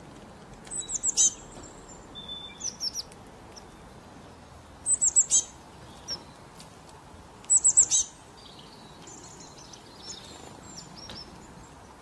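A small songbird calling: three bursts of four or five quick, very high chirps, each sliding down in pitch, with a few softer high notes between them.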